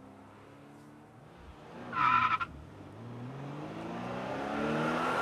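Race car sound effect: engines running with falling then rising pitch as cars pass, a short loud tyre squeal about two seconds in, and an engine revving up louder toward the end.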